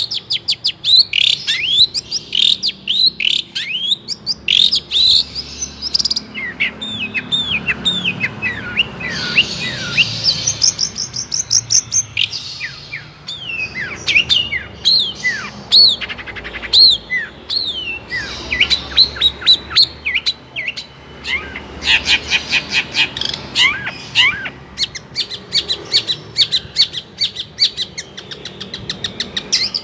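Long-tailed shrike (cendet) singing a long, varied song of quick chirps and downward-sweeping whistles, broken by fast trills.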